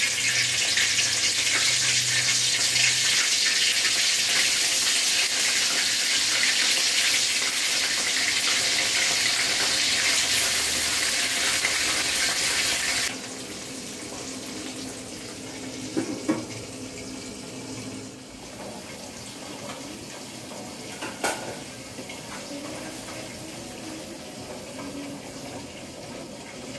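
Pieces of mackerel frying in hot oil in a wok: a loud sizzle starts as the fish goes in, drops suddenly to a quieter sizzle about halfway through, and has a couple of sharp clicks later on.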